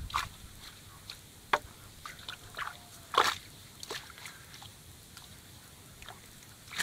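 Scattered splashes and slaps of shallow, muddy water in a fish net as a hand grabs at trapped fish, the loudest splash about three seconds in.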